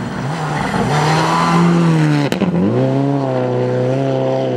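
Subaru Impreza WRX STI rally car's turbocharged flat-four engine pulling hard, its note rising, then a single sharp crack about halfway through as the revs drop. The revs then climb again and hold steady while the car slides on snow, with a hiss of tyres and spray.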